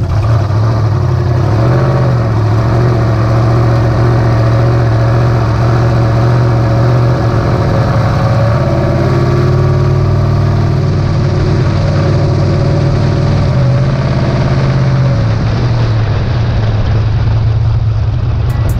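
Twin-turbo 427 cubic-inch LS-based V8 running steadily as the car drives along, a loud, deep drone with only small changes in pitch.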